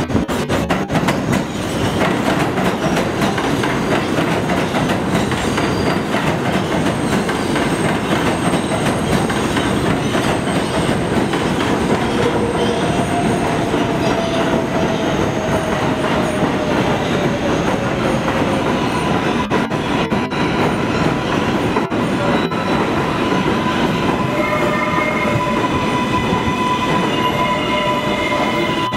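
Kawasaki R188 subway trains pulling into an elevated station: a steady rumble of steel wheels on rail, with a whine that falls in pitch about halfway through as the train slows along the platform. A few sharp clicks come a little later, and in the last few seconds steady high-pitched squeal tones sound as a second train comes in on the other track.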